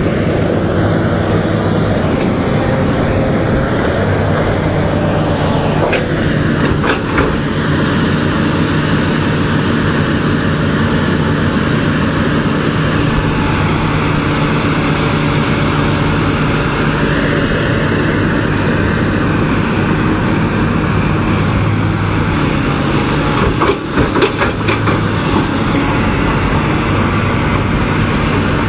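Diesel engines of several hydraulic excavators running together under load, a steady low drone, with a few short sharp knocks about a quarter of the way in and again near the end.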